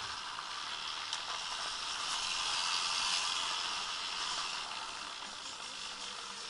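Bike tyres rolling over a gravel driveway, a steady gritty hiss that grows louder about halfway through and eases off near the end.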